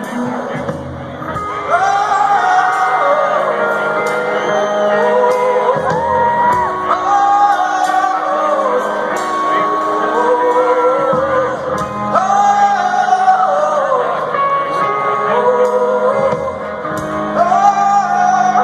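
Live rock band playing loud, with a male singer repeating a rising and falling sung phrase about every five seconds.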